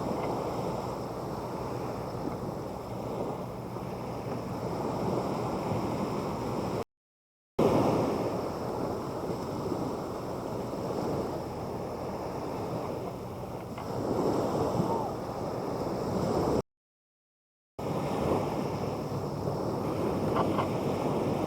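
Sea waves washing onto a sandy beach, a steady surging noise that swells and eases, with some wind on the microphone. The sound cuts out completely twice for about a second.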